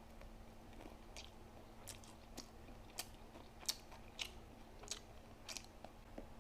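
A person chewing food close to the microphone, with short, sharp wet mouth clicks about once or twice a second.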